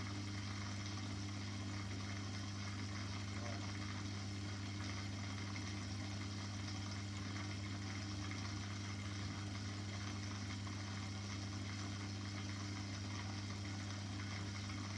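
Steady low electrical hum of an aquarium pump, with a constant hiss over it.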